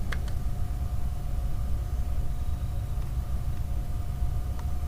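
Steady low rumble with a faint steady whine over it, and a couple of light ticks.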